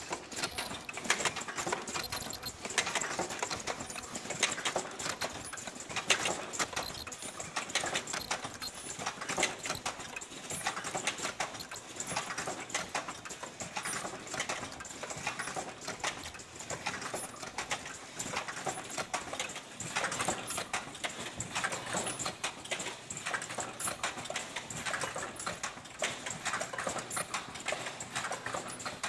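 Outside earloop machine with turnover unit on an automatic face-mask production line, running: a continuous dense clatter of rapid clicks and clacks from its moving mechanisms.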